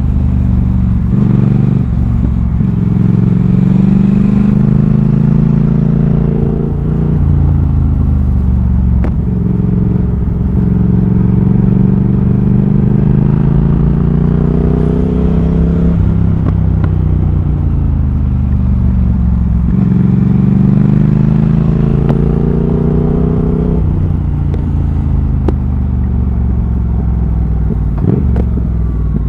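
2020 Triumph Thruxton RS's 1200 cc parallel-twin engine through a British Customs GP slip-on exhaust with X-pipe, heard from on the bike while riding. The engine pitch climbs under throttle and drops back again and again, as the rider accelerates, shifts and backs off through the bends.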